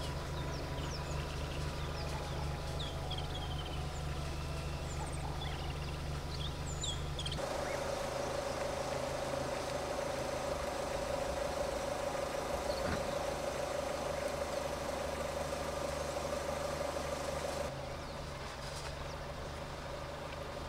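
Outdoor bush ambience in edited segments: birds chirping over a steady low hum, then after a sudden cut a steady single-pitched drone, which changes again and grows a little quieter near the end.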